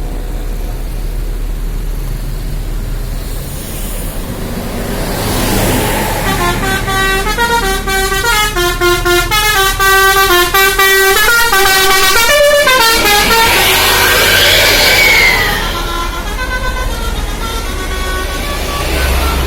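Bus with a Basuri telolet horn: after a few seconds of vehicle noise, the horn plays a fast tune of stepped notes for about seven seconds, then a hiss with a gliding tone, and fainter horn notes near the end.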